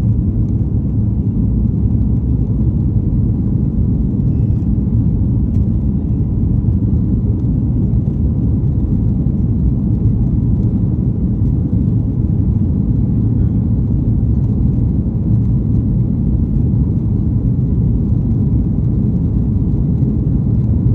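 Steady low rumble of a jet airliner heard from inside the passenger cabin during takeoff: engine noise and airflow with no change in pitch.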